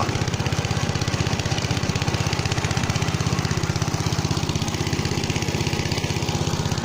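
Motor Sich walk-behind tractor engine running steadily with a fast, even pulsing beat, under load as it drives its rotary tiller through the soil.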